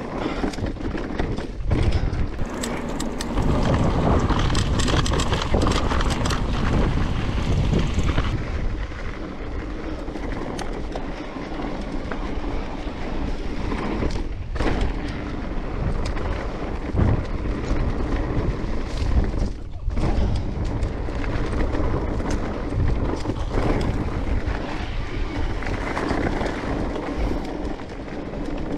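Mountain bike riding down a rough dirt trail: steady tyre noise with the bike rattling and knocking over bumps, loudest for several seconds a couple of seconds in.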